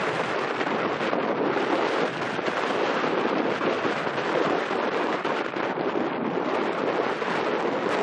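Steady rushing noise of wind and water, even and unbroken, with no ship's engine or horn standing out.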